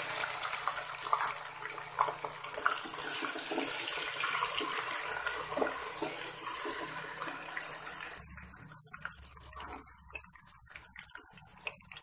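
Raw mutton pieces sizzling hard in hot oil with fried onions as they start to brown, stirred with a wooden spoon. About eight seconds in the sizzle drops right down, leaving faint frying and a few spoon clicks against the pot.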